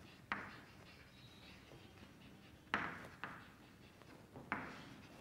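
Chalk striking and scraping on a chalkboard as words are written: four faint, short strokes, irregularly spaced.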